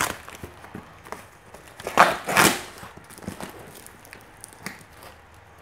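Utility knife cutting through bubble wrap and packing tape on a parcel, with plastic crinkling and small clicks. There are two louder strokes about two seconds in.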